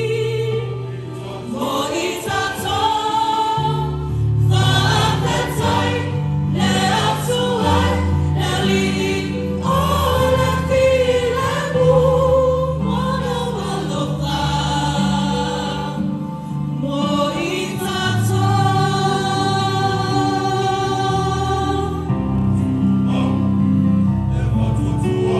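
Choir singing a Christmas carol in parts, held sung notes over a steady low accompaniment.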